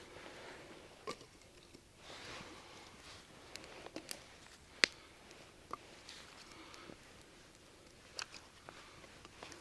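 Wood campfire crackling with a faint hiss and scattered sharp pops and clicks, the loudest about five seconds in, while a handful of sticks are laid across it.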